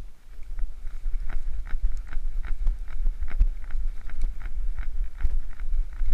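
Hurried footsteps through grass and soil, about two to three steps a second, with a low wind rumble on the GoPro Hero3's microphone.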